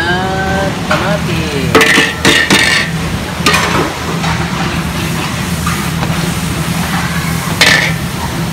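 Squid adobo cooking in a pan, sizzling while a spatula stirs it and strikes the pan several times, with sharp clanks about two seconds in and near the end. A steady low hum runs underneath.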